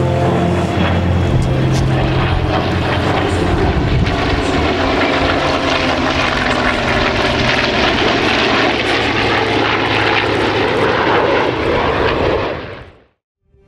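Formation flypast of an F-35A Lightning II jet with two piston-engine propeller warbirds, an A-1 Skyraider and a P-51D Mustang: a loud, steady mix of jet roar and propeller engine drone. It fades out to silence about a second before the end.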